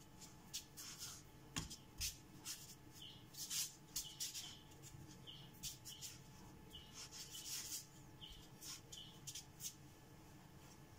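Palms rolling a strip of dough back and forth on a bamboo cutting board: soft, irregular rubbing swishes with small squeaks. There are a couple of light knocks on the board about two seconds in.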